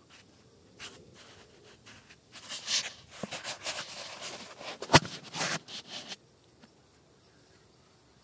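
An unidentified night animal's harsh, hissing screech, given in a ragged run of pulses lasting about four seconds from a little over two seconds in, with a sharp click near the middle; recorded on a phone.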